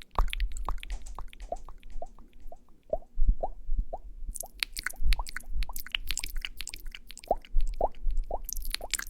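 Close-miked ASMR sound effects: a string of short wet plops and clicks, several a second, some with a quick bend in pitch like water drops, with crackly rustling bursts in the middle and near the end.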